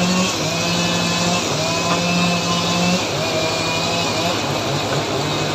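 Two-stroke chainsaw engine running at high speed, its pitch holding steady with short dips about every second and turning choppy near the end.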